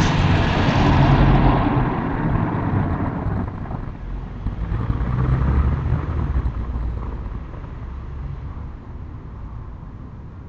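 A road vehicle passing by: a rumbling engine-and-tyre noise, loudest at first with a second swell about five seconds in, then fading away.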